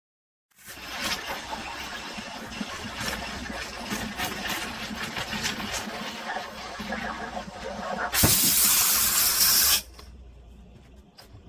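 Espresso machine hissing and sputtering steam for several seconds, then a loud, bright blast of steam that cuts off abruptly about ten seconds in, followed by a faint hiss.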